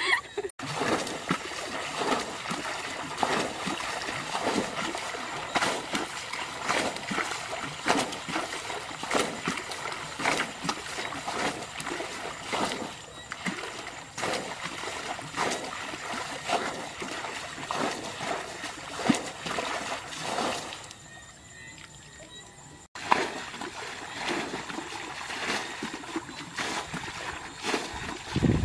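Muddy water splashing and sloshing as a plastic bucket is dipped into a shallow paddy pool and its water thrown out, over and over, bailing the pool. The splashes come in an irregular run, easing off for a couple of seconds about three-quarters through before picking up again.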